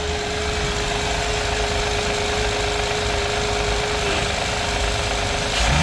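Honda Accord V6 engine running with a fast knocking noise from the hydraulic belt tensioner, which is hitting the end of its travel. A steady tone runs through it and stops shortly before the end.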